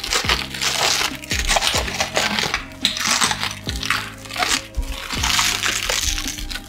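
Clear plastic protective wrap crinkling in short bursts as it is pulled off a new LCD panel, over lo-fi background music with a steady beat.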